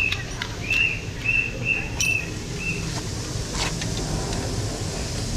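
Metal clinks of a socket wrench as a socket is snapped onto its extension and the wrench is set on the brake caliper bolt. Over the first three seconds come six short, high chirps of the same pitch, evenly spaced.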